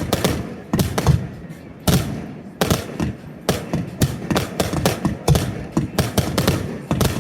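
Fireworks display: a rapid, irregular barrage of shell bursts, about two bangs a second, each trailing a low rumble.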